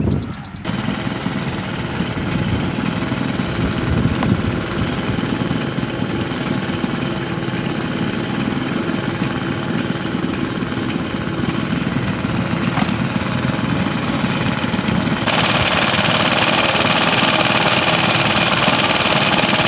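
Small single-cylinder stationary engines running steadily. About three-quarters of the way through, the sound switches abruptly to a louder, brighter-toned engine, a JAP engine set running.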